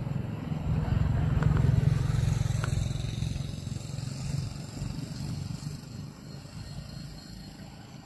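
Low engine rumble of a passing motor vehicle, swelling to its loudest about two seconds in and then slowly fading.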